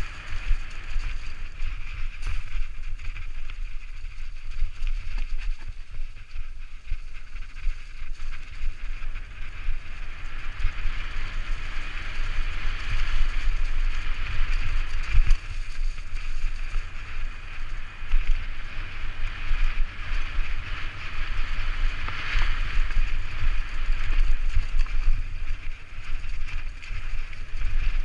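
Wind buffeting a helmet-mounted camera's microphone as a Propain Tyee enduro mountain bike rolls fast down a leaf-covered dirt trail. A steady low rumble runs under a rushing noise of tyres on leaves and dirt that swells and eases with speed.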